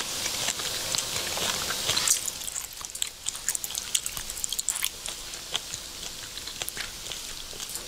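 Close-miked ASMR eating sounds: a steady scatter of small clicks and crackles as hands pull at and a mouth chews a whole steamed carcass.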